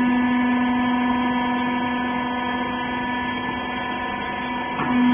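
Small hydraulic rag baler's electric motor and hydraulic pump running with a steady hum. The pitch sags briefly near the end, as the pump takes up load, and then recovers.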